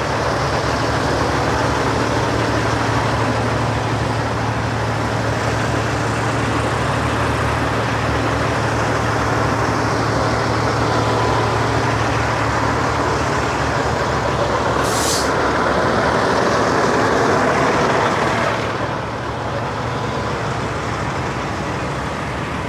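Semi-truck diesel engine running at a steady idle, with a short high hiss of air about fifteen seconds in. After about eighteen seconds the engine hum drops away, leaving a quieter background of vehicle noise.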